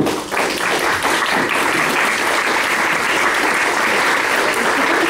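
A room of guests applauding: a full round of clapping that starts at once and holds steady and loud, in response to a wedding toast.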